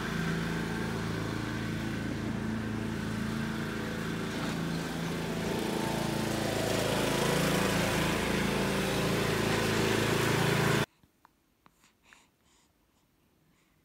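Riding lawn mower engine running steadily, a low even drone that cuts off abruptly about eleven seconds in.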